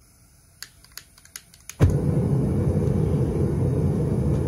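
A long-reach lighter clicks about five times, then the gas burner of a metal-melting furnace catches suddenly, less than two seconds in, and burns loud and steady with a deep, low noise as the furnace is fired up.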